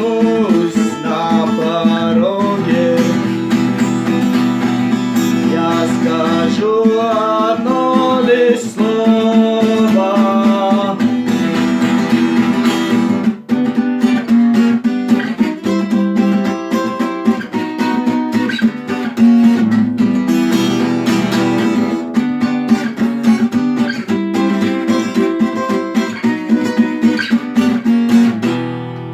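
Acoustic guitar strummed steadily, with a singing voice over roughly the first dozen seconds. Near the end the strumming stops and the last chord fades.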